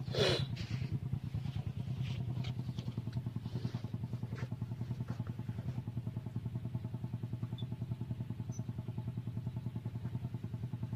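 Diesel engine of a two-wheel walking tractor idling steadily, with an even pulse. A brief loud rushing noise comes just after the start.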